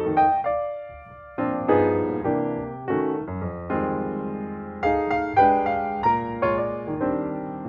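Background piano music: chords and single notes played at a gentle pace, with a short pause about a second in.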